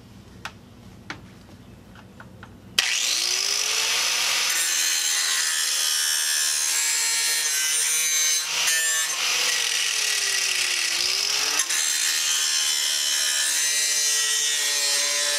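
A handheld angle grinder switches on about three seconds in, spins up and grinds the edge of a dull steel lawnmower blade to sharpen it: a loud, steady grinding whine. The motor's pitch drops briefly twice as the disc bites into the steel. Before it starts there are a few light clicks of handling.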